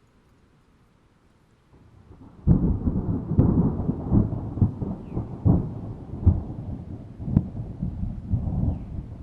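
Thunder: after a quiet start, a low rumble builds and breaks about two and a half seconds in with a sharp crack. A long roll of deep rumbling follows, with several more cracks along the way, and it eases off near the end.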